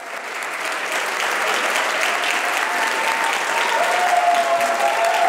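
Audience applauding, swelling up over the first second into steady clapping. A thin, steady held tone sounds over the clapping in the second half.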